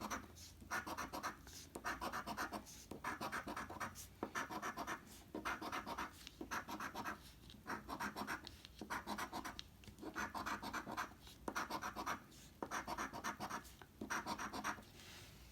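Scratching the coating off a lottery scratch-off ticket: short rasping scrapes, a little more than one a second, each made of rapid fine strokes.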